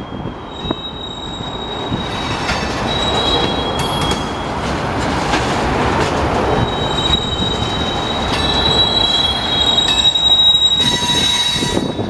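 Union Pacific freight train rolling slowly past, the rumble of its cars overlaid by steel wheels squealing against the rail in high, steady tones that come and go and grow louder toward the end.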